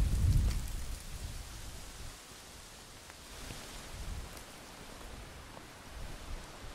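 Wind buffeting the microphone, a low rumble that dies away over the first second or two, leaving a faint outdoor hiss with a few light ticks.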